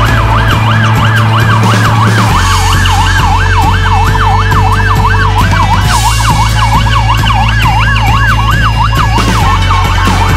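Emergency vehicle siren in a fast yelp, its pitch sweeping up and down about three times a second, over background music with a steady deep bass.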